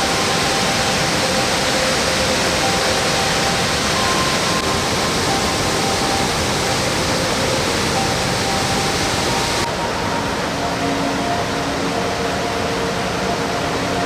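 Steady rushing roar of a waterfall plunging into its pool, with soft sustained notes of gentle music faintly beneath it. About ten seconds in, the roar turns a little duller, losing some of its hiss.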